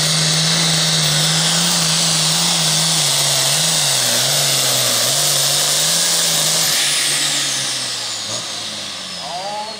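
Modified International 966 Pro Farm pulling tractor's diesel engine at full throttle under load, loud and steady while it drags the sled. About seven seconds in it backs off: the engine note drops and a high whine falls away.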